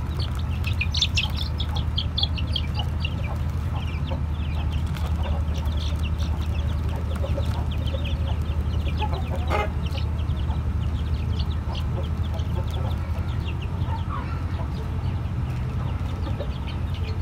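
A flock of young chickens peeping and chirping: many short, high calls, thickest in the first few seconds, with one stronger call about halfway through, over a steady low hum.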